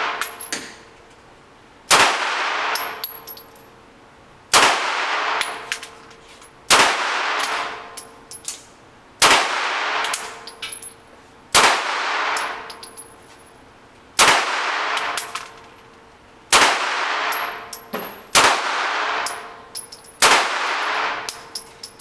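HK VP9 9mm pistol firing 115-grain handloads: nine slow, aimed shots about two to two and a half seconds apart. Each shot echoes off the indoor range's walls and is followed by small metallic clinks of ejected brass landing.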